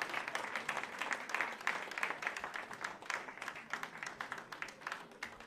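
Audience applauding after a song, the clapping thinning out and dying away toward the end.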